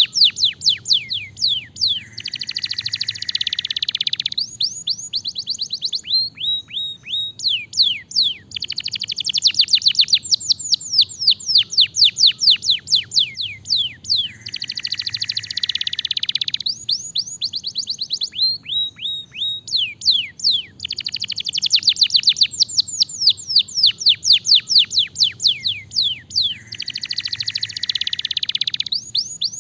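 Domestic canary singing: rapid trills of short downward-sweeping notes alternating with dense buzzy rolls. The song phrase repeats about every six seconds.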